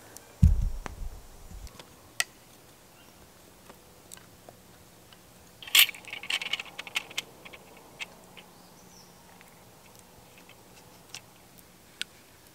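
Gear-handling sounds: a low dull thump about half a second in, then a sharp clatter of wooden bucksaw frame parts knocking together about six seconds in, followed by a quick run of clicks and a few scattered ticks.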